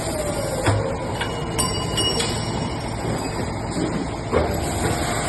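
CNC automatic-feed double-end pipe chamfering machine running through its cycle: a steady mechanical din with sharp metallic clanks every second or so, and a whine that slides down in pitch during the first second.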